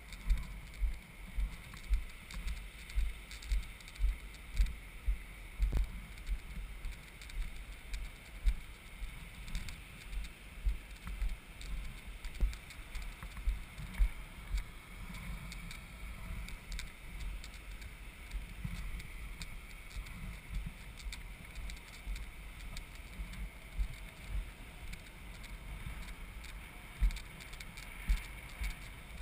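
Hand-moved beach sand cart rolling and jolting over sand, with low knocks and rattles about twice a second, heavier in the first half and then a smaller, denser rumble, over a steady hiss.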